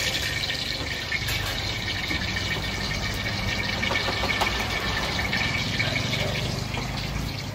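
Steady hiss of running water over a low, even hum.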